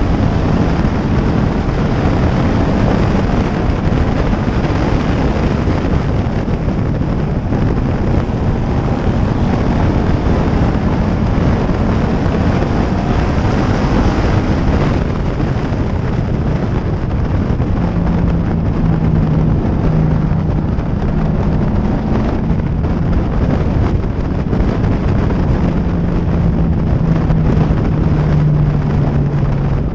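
Pure stock race car's engine running hard at racing speed, heard from an onboard camera with wind noise on the microphone. The engine note drops lower from about halfway through and again near the end as the revs come down.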